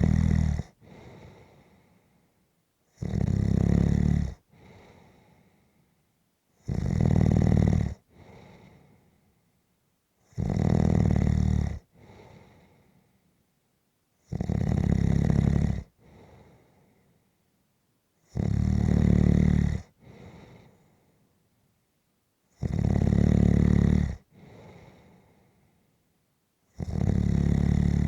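Snoring in a steady rhythm: a loud snore about every four seconds, each followed by a shorter, fainter breath.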